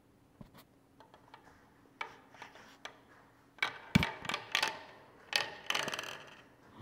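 A marble rolling and clattering down a plastic marble run: a few light clicks at first, then rattling and knocks from about two seconds in, a sharp knock near the middle and a longer rattle near the end.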